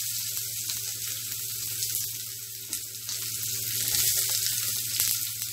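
Chopped onions frying in hot oil in a steel kadai, a steady sizzle with scattered light clicks.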